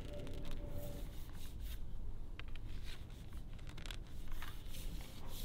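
Sections of a solid-bamboo fishing rod being handled and slotted together at their joints: light scattered clicks and rubbing of lacquered bamboo, over a steady low rumble.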